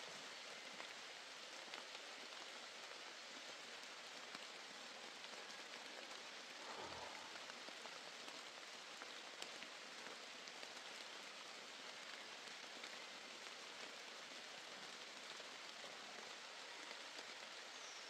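Faint steady outdoor background hiss with a few light ticks and a soft thump about seven seconds in.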